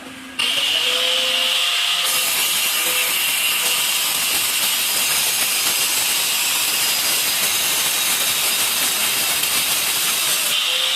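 Electric tile-cutting saw: its motor starts abruptly about half a second in with a whine, and from about two seconds the blade cuts through tile with a loud, steady hiss. Near the end the hiss eases back and the whine returns as the blade runs free.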